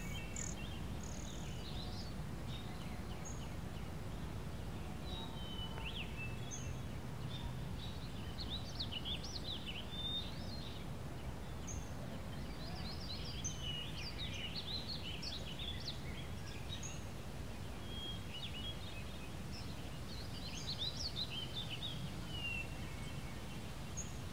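Outdoor ambience: small birds chirping and singing on and off, over a steady low background rumble.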